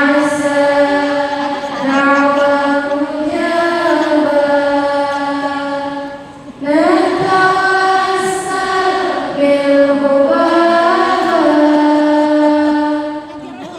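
A woman's voice chanting in long, drawn-out sung notes that slide between pitches, in two phrases with a short break about six and a half seconds in.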